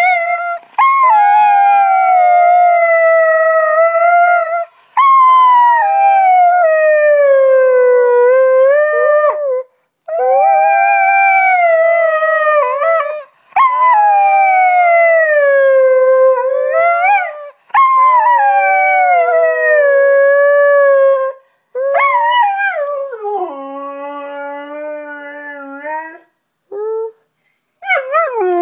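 Siberian husky howling close up: about six long howls of several seconds each, each sliding down in pitch, separated by short breaths. Near the end come a weaker, lower held note and a few short yips.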